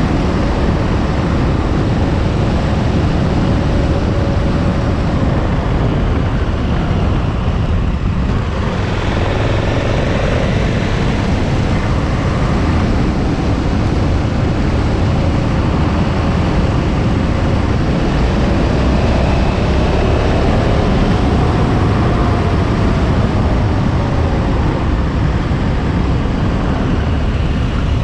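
KTM 1290 Super Adventure's V-twin engine running at road speed, its note rising and falling a few times with the throttle, under a heavy rumble of wind and road noise.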